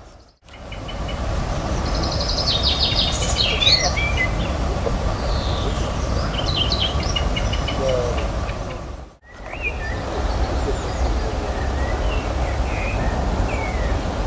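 Small songbirds chirping and trilling in quick, varied phrases over a low steady rumble, with a faint steady hum. The sound drops out briefly near the start and again about nine seconds in.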